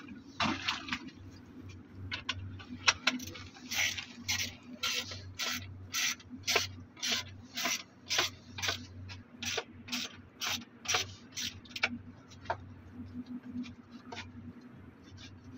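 Ratchet spanner clicking in short strokes, about two a second, as the bolts of an electrofusion saddle clamp on HDPE pipe are tightened. The strokes stop about three-quarters of the way through.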